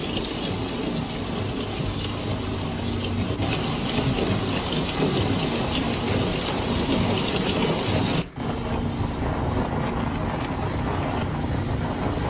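Rushing muddy floodwater and heavy rain: a steady, loud roar with a low steady hum underneath. It breaks off for a moment about eight seconds in, then goes on.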